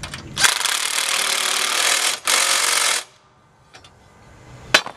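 Cordless impact driver hammering as it drives a 3/8 bolt down tight, in two bursts with a brief pause between them. A single sharp knock follows near the end.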